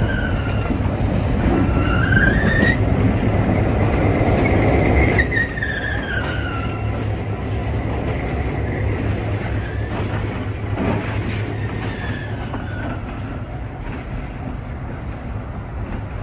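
EMD FP7 diesel locomotive, a 16-cylinder EMD 567 engine, passing slowly at close range. It runs with a steady low drone and a louder rumble that cuts off suddenly about five seconds in. Over this the train's wheels squeal in tones that rise and fall, loudest two to six seconds in, with another squeal near the twelfth second.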